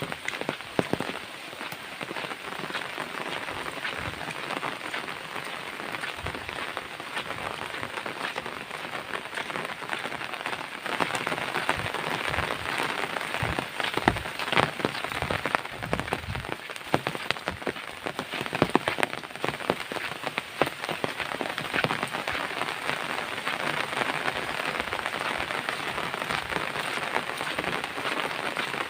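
Steady rain, a dense hiss dotted with many separate drop ticks, getting a little louder about eleven seconds in.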